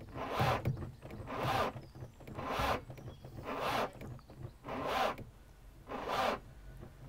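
Car engine, its oil replaced with a mix of honey, milk, WD-40 and power steering fluid, labouring with a harsh rasp that repeats about once a second over a low rumble, sounding pretty clogged up.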